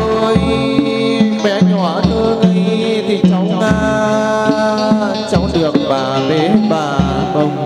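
Đàn bầu, the Vietnamese one-string monochord, playing a slow melody of held notes that slide and bend in pitch, over a repeating low bass line and drum-kit beat.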